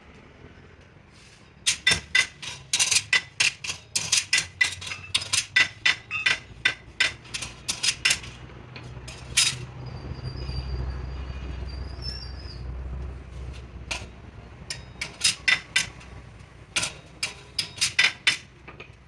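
Rapid hammer blows, about three or four a second, in two runs with a pause between them.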